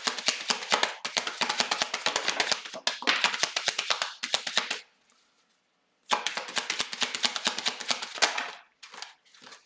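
A Lenormand card deck being shuffled by hand: a fast, dense stream of card flicks. It stops for about a second midway, resumes, and thins to a few taps near the end.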